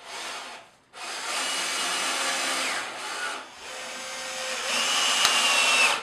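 Cordless drill-driver running a screw through a batten into a timber stud in three runs of its motor whine: a short blip, then two longer runs, the last growing louder toward the end. A single sharp click comes near the end.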